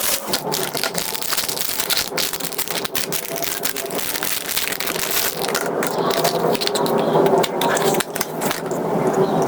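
Crinkling and crackling of packaging being handled and opened, with many sharp crackles.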